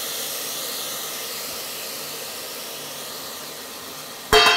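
Rice frying in ghee in a pressure cooker pan: a steady sizzling hiss that slowly fades. Near the end comes a sharp metallic clang with a brief ringing tone as the pan is struck.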